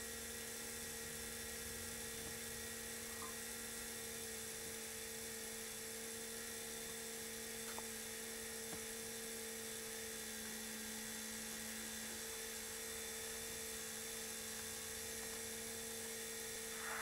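Steady electrical hum made of two low tones over a faint hiss, with a few faint ticks.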